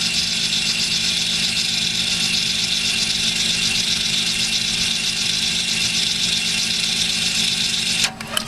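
Audi A4 B8 rear electromechanical parking brake motor, run directly off a 12V jump starter, whirring steadily as it winds the parking brake spindle back so the caliper piston can be pushed in. It stops near the end, followed by a few clicks.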